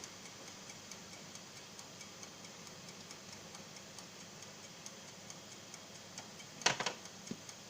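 A clock ticking steadily and faintly in a quiet kitchen, with a brief clatter of a few sharp clicks near the end.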